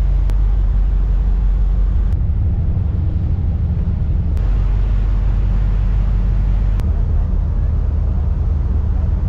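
A loud, steady low rumble with a hiss above it, its texture shifting abruptly a few times.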